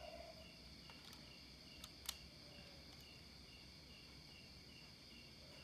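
Faint chirping of crickets, about three chirps a second, over a steady high insect drone. A few small clicks sound about one and two seconds in, the sharpest about two seconds in.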